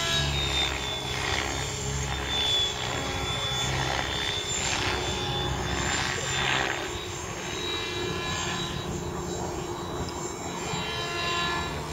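Mikado Logo 600SE electric RC helicopter in aerobatic flight: a steady rotor hum under a high motor whine, with the blades' whoosh swelling and fading several times as it flips and turns.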